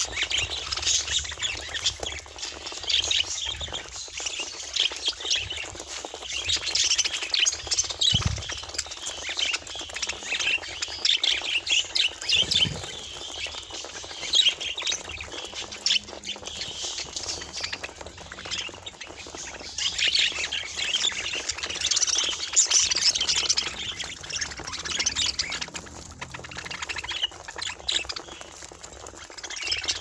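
A flock of budgerigars chattering continuously, many high chirps, warbles and squawks overlapping.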